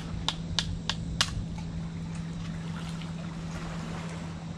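Shell of a barbecued mud crab being cracked apart by hand: a quick run of about five sharp cracks, roughly three a second, in the first second and a half, then fainter scattered cracks and handling. A steady low hum and wind run underneath.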